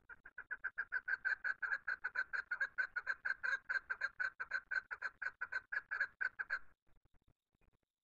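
Chukar partridge calling: a fast, even run of short repeated notes, about seven a second, that stops shortly before the end.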